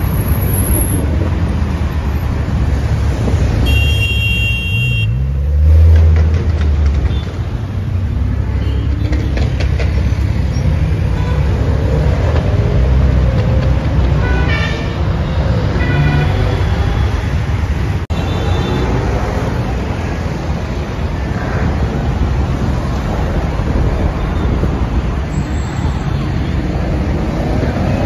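Cars and sports cars driving on a city road, with steady engine and traffic noise. Car horns sound several times: a long honk about four seconds in, then shorter toots around the middle. An engine revs up near the end.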